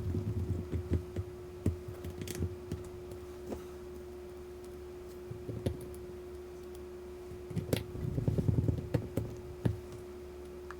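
Small screwdriver fastening tiny screws into a MacBook Air's replacement battery: scattered light clicks and taps of metal on metal, bunched in two busier spells, with soft handling rumbles. A faint steady hum runs underneath.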